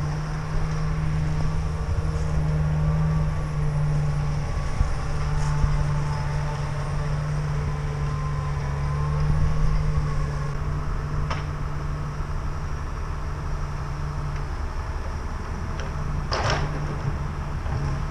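Forestry forwarder's diesel engine running steadily with a low hum, a thin whine wavering in pitch above it, and a short knock near the end.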